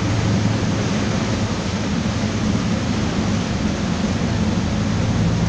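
Canal tour boat's engine humming steadily under a rushing wash of water churned along the hull, heard while passing beneath a low bridge.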